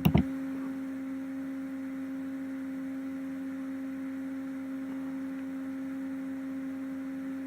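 Steady low electrical hum at one pitch, with a single sharp click right at the start.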